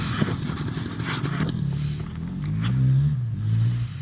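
Yamaha YZ250FX dirt bike's 250 cc single-cylinder four-stroke engine running on a trail ride, its pitch rising and falling with the throttle over the last two seconds. A rush of noise sits over the engine for the first second and a half.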